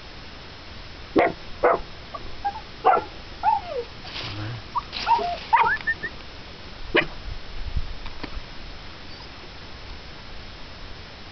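A puppy barking in short, sharp yaps mixed with high, bending whines, a run of calls from about a second in to about seven seconds in.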